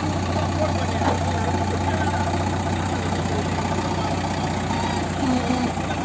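JCB 3DX backhoe loader's diesel engine running steadily at idle, with an even low hum.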